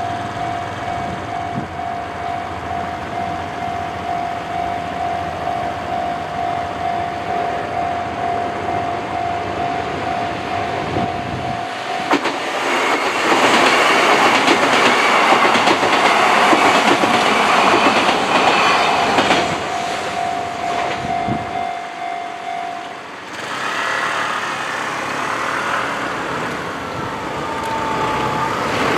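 A Japanese level-crossing warning bell rings steadily while a Kintetsu Minami-Osaka Line electric train passes close by. Starting about twelve seconds in, the train's wheels clatter over the rail joints for about seven seconds and drown out the bell. The bell then stops a few seconds later, and the train noise carries on with a falling whine near the end.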